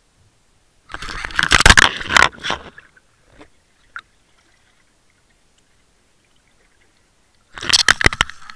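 Camera scraping and knocking against a plastic bucket as it is moved, in two rough bursts: one about a second in and a shorter one near the end, with a single click between.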